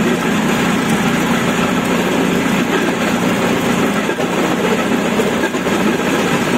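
Railway motor trolley running along the track: a loud, steady engine and running noise.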